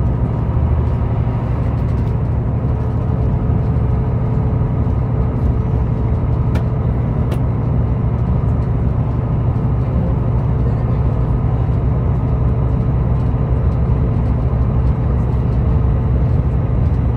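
Interior running noise of a Class 158 diesel multiple unit at speed: a steady low rumble of the underfloor diesel engine and the wheels on the rails, heard from inside the carriage. Two faint ticks come a little after the middle.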